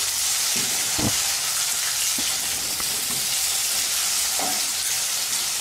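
Sliced green onions sizzling in hot oil in a kadai, stirred with a wooden spatula, with a steady hiss and a few light knocks of the spatula against the pan.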